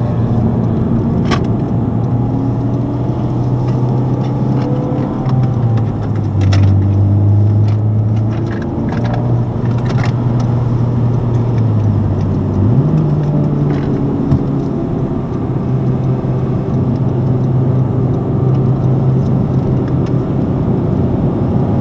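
Honda Civic Type R's turbocharged four-cylinder engine pulling at mid revs, heard from inside the cabin over tyre and road noise. Its note dips about five seconds in and jumps up sharply about thirteen seconds in.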